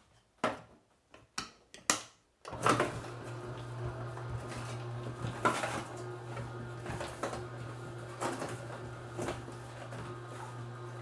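A few knocks, then about two and a half seconds in the Kuvings Auto 10 Plus slow juicer's motor starts and runs with a steady low hum, its hopper blade and auger crunching through pears, apples and burdock with irregular cracks.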